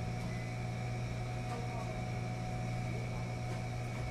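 Laundromat ambience: the steady running hum of commercial front-loading washing machines, a constant low hum with fainter higher-pitched tones over it.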